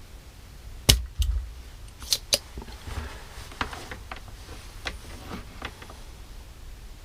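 Small hand tools clicking and tapping on a circuit board and workbench during soldering: a sharp click about a second in, a few more clicks over the next second and a half, then lighter taps and scraping.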